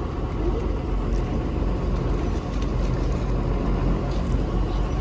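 Tractor engine running steadily, a low even drone with no change in pitch.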